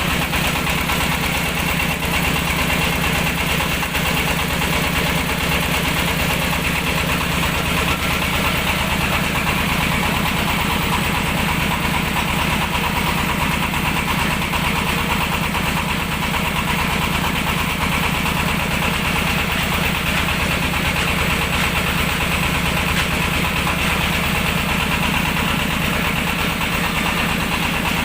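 Mobile rice-milling machine running steadily: its engine and milling machinery drone on without a break.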